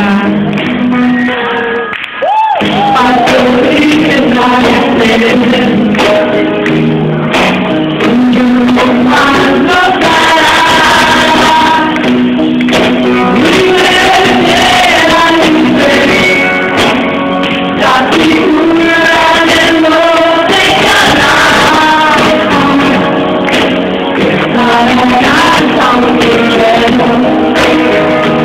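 Live pop band playing in a large hall, with a woman singing lead over guitar and keyboards, recorded from the audience. The sound briefly drops out about two seconds in.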